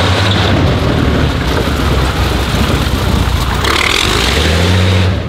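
BMW VI 47-litre aircraft V12 running loud through an exhaust with no real silencer as the car drives by, a deep, steady engine note.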